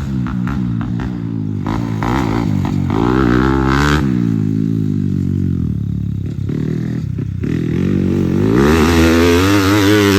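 Grasstrack racing motorcycle engine revving, its pitch rising and falling several times and loudest near the end.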